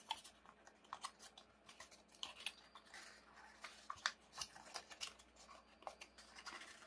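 Origami paper crinkling faintly in many small, irregular crackles as a crimped sheet is pushed in and pressed along its creases.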